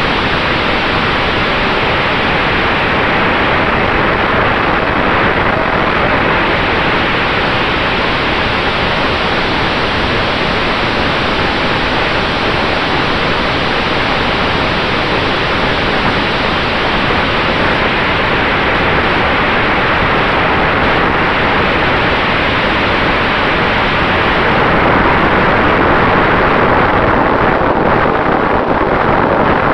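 Steady wind rush on the onboard camera microphone of a flying E-flite A-10 Thunderbolt II RC jet, with the faint steady whine of its 64 mm electric ducted fans beneath it.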